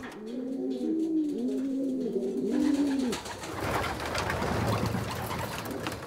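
Homing pigeons cooing, a run of low rising-and-falling coos over the first three seconds. Then a dry pattering of grain poured into a wooden feeding trough.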